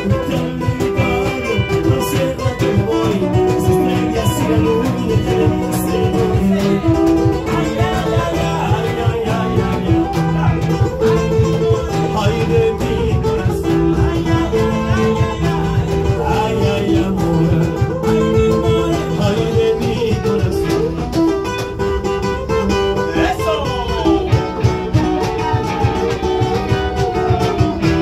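A live duo plays a song on acoustic guitar and electric guitar, with a man's voice singing into a microphone at times.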